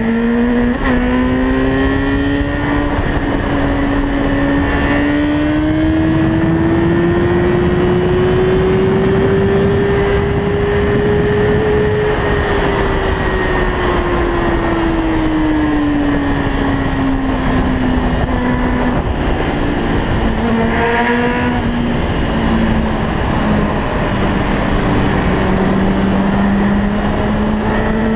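Motorcycle engine running at speed, heard from on the bike, with steady wind and road noise. The engine pitch climbs slowly for about twelve seconds, falls back as the bike slows, then picks up again near the end.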